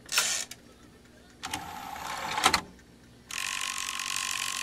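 An ASTAR DVD player's disc drive mechanism running: small motors whine and plastic gears grind in two spells of about a second each, with a click between them. It doesn't sound great, a sign of a worn, struggling mechanism.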